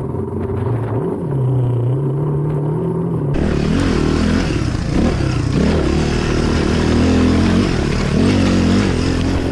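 Suzuki DR350SE single-cylinder four-stroke dirt bike engine under way, its revs rising gently. About three seconds in the sound switches abruptly to a louder mix with a steady hiss, and the revs rise and fall repeatedly as the bike climbs a rough trail.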